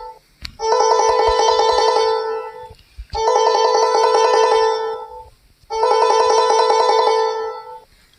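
A musical ringtone: a fast fluttering phrase about two seconds long, repeated three times with short pauses between, as a phone ring repeats.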